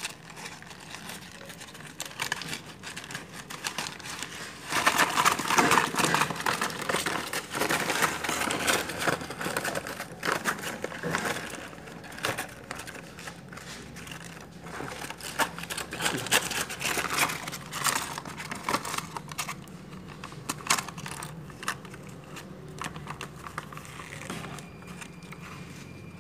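Brown paper bag crinkling and rustling as it is handled and opened, a dense crackle of paper that swells about five seconds in and eases off in the second half.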